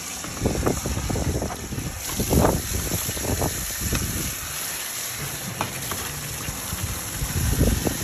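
Water running from an outdoor tap onto a plastic water-tank filter basket as it is rinsed and rubbed clean by hand, a steady hiss, with several dull bumps from the filter being handled.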